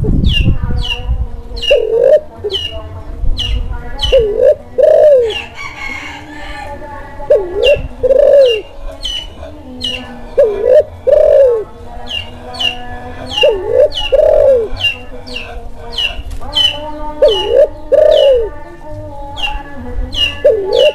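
Kelantan-strain spotted dove in breeding condition, cooing over and over: seven short phrases of two or three curved notes, one about every three seconds. A small bird chirps rapidly and repeatedly behind it.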